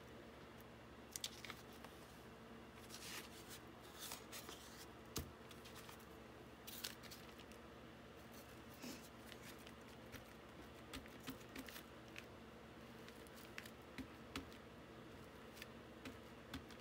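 Quiet handling of paper and printing tools on a worktable: scattered soft rustles, scrapes and taps over a faint steady hum.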